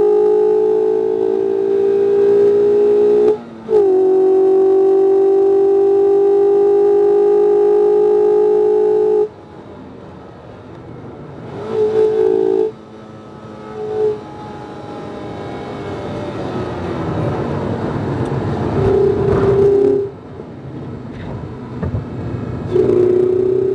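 Mazda MX-5 RF's 2.0-litre four-cylinder engine running loud under load, with a brief break about three and a half seconds in. About nine seconds in the engine note drops away, leaving a rushing noise that builds over the next ten seconds with short snatches of engine note. The engine comes back on load near the end, its pitch rising.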